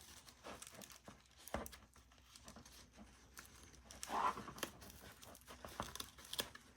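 Faint rustling, light clicks and taps from hands threading a Velcro strap through a hole in plastic holster parts, with a brief louder scrape about four seconds in.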